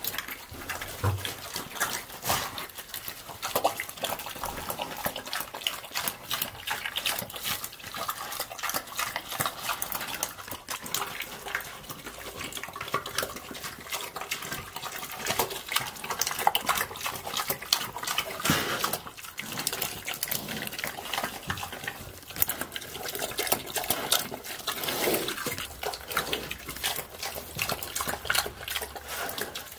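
A pig eating wet grain-and-scraps slop from a trough: a continuous, irregular run of wet smacking, slurping and chewing as its snout works through the mash.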